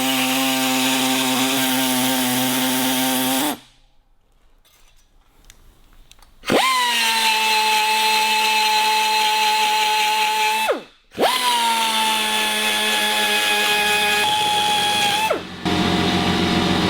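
A rotary power cut-off tool cutting through a brazed steel motorcycle fork brace. It makes a steady whine in three runs, stopping briefly a few seconds in and again near the end. Each restart begins with a sharp onset, and the pitch drops slightly as the tool settles into the cut.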